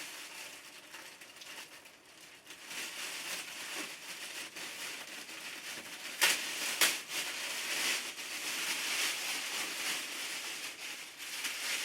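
Packing material being pulled off and handled, crinkling and rustling throughout, with two sharp snaps about half a second apart a little past halfway.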